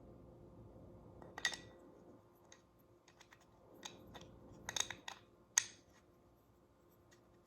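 Light clicks and taps of small parts being handled, in scattered single strikes with a quick cluster a little before the middle and one sharper click soon after, over a faint steady hum.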